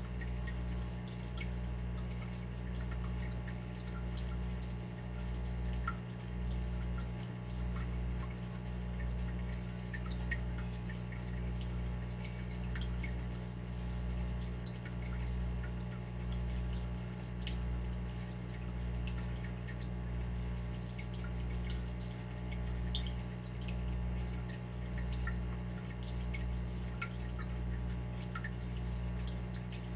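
Water dripping: scattered small drops, irregular and close together, over a steady low hum that swells and dips.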